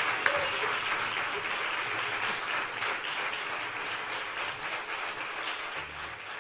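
Audience applauding, dense steady clapping that slowly eases off toward the end.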